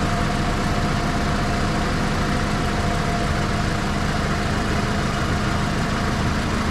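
Toyota RAV4's engine idling steadily, heard from underneath the car by the exhaust; the engine is warmed up, with the catalytic converter running hot.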